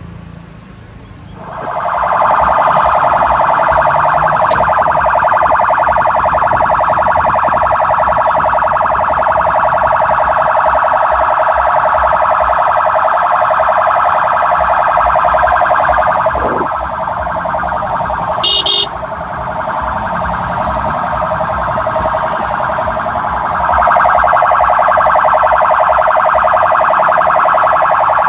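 Convoy's electronic siren sounding continuously with a fast warble. It starts about a second and a half in, drops somewhat in the middle with a short higher beep, then gets louder again near the end.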